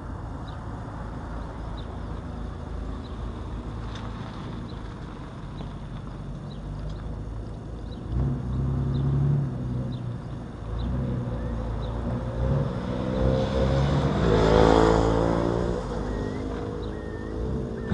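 A motor vehicle's engine passes by. It rises from about eight seconds in to its loudest near fifteen seconds, then fades. Faint short bird chirps sound throughout.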